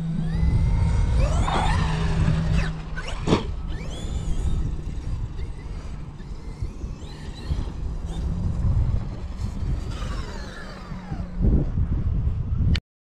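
Traxxas XRT electric RC monster truck's brushless motor whining up and down in pitch as it is driven, over a heavy low rumble, with one sharp knock a few seconds in. The sound cuts off suddenly near the end.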